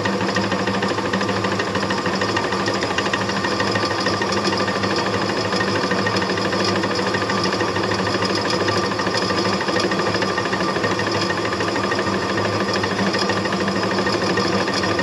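Old drill press running steadily, its bit drilling a guide hole into a broken steel exhaust stud in a Ford FE cast-iron cylinder head. It has a fast, even chatter.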